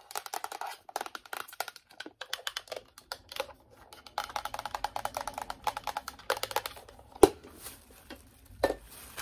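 Long manicured fingernails tapping quickly on a small hollow plastic trash can, a dense run of light clicks, with one sharp louder knock about seven seconds in.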